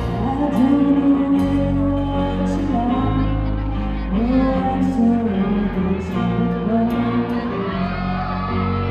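A live rock band plays, with a female lead singer carrying the melody over electric guitars, bass and drums.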